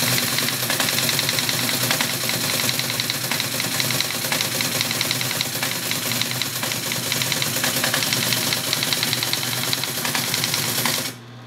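ASR-33 Teletype printing lines of text: a rapid, even clatter of type strikes from its print mechanism. The printing stops about a second before the end, leaving the steady hum of its running motor.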